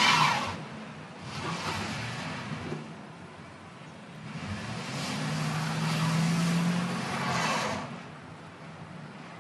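A stuck van's engine revving and its wheels spinning in snow and slush, in three surges of hissing tyre noise, the last and longest with the engine held at a steady pitch.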